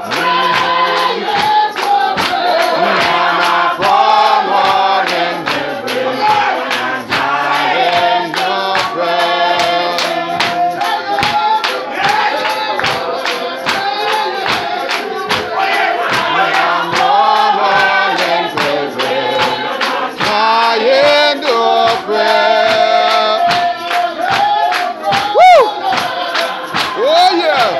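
Church congregation singing a gospel song together as a choir, over a steady percussive beat.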